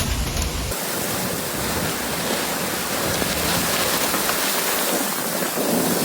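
Steady rushing hiss of heavy storm rain and running water, with an abrupt change in the sound less than a second in.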